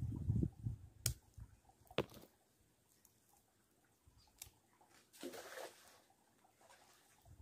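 Roasted cashew nuts being cracked and their shells picked apart by hand: a few low knocks at the start, sharp cracks about one and two seconds in and again around four and a half seconds, and a brief scraping rustle a little past five seconds.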